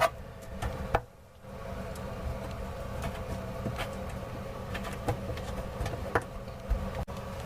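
Hands working water supply hose fittings under a bathroom sink: scattered light clicks and knocks of metal and plastic parts being handled and threaded, over a steady low hum.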